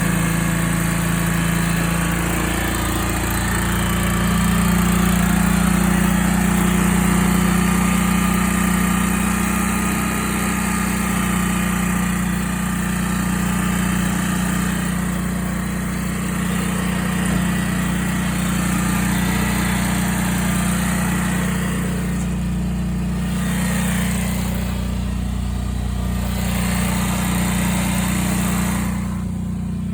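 8 kW standby generator engine running steadily. Its note rises a little a few seconds in as the cold-start control brings it from low speed toward running RPM.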